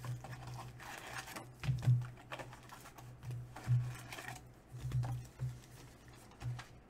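Plastic wrap and the cardboard of a trading-card box crinkling and rustling as it is opened, then foil card packs rustling as they are lifted out in stacks, with a few louder crackles and knocks of handling.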